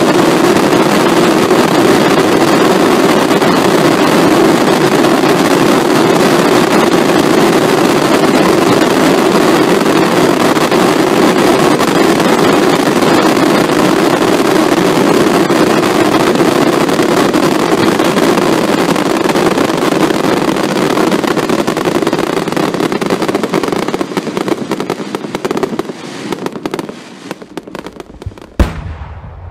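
A massed barrage of daylight fireworks: thousands of crackling stars and shots fire at once and merge into one dense, unbroken crackle. Near the end it thins out into scattered pops, and then a single sharp bang rings out.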